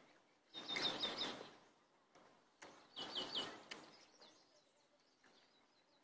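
A small bird chirping in quick runs of three or four short high notes, twice, each run over a faint burst of noise lasting about a second.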